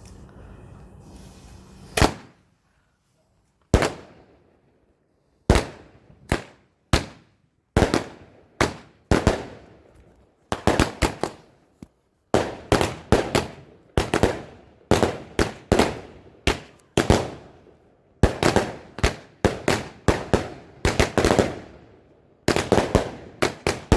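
A multi-shot firework, a consumer cake or barrage, firing. One bang comes about two seconds in, then a long run of sharp bangs, each with a short fading tail, that come faster and faster until there are two or three a second near the end.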